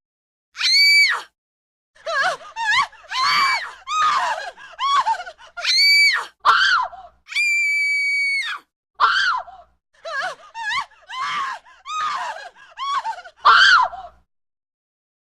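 A string of high-pitched human screams for a horror soundtrack: a few long, steadily held shrieks among many short, wavering screams, stopping about a second before the end.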